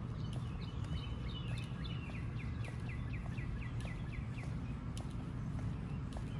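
Footsteps on a concrete walkway over a steady low rumble, while a bird sings a fast run of short repeated notes for about two seconds in the middle.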